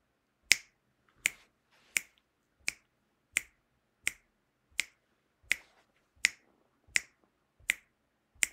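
Steady clicks keeping time, about 82 a minute, sharp and evenly spaced: the beat for a dry valve-fingering drill.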